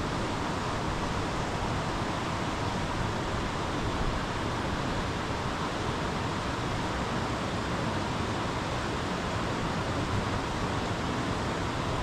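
Steady, even rushing noise with no breaks or gusts.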